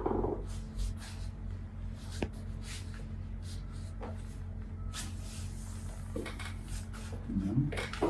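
Quiet treatment room with a steady low electrical hum. Faint rustling and a few soft clicks come as the chiropractor's hands shift and press on the patient's clothed back on the treatment table. A brief low vocal sound comes near the end.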